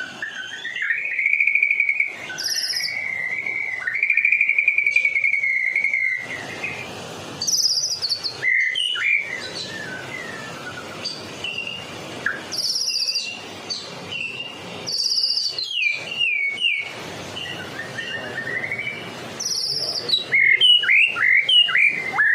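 White-rumped shama (murai batu, Medan type) singing steadily: a long buzzy trill held for several seconds, then varied whistled phrases with very high squeaky notes, and a quick run of falling notes near the end.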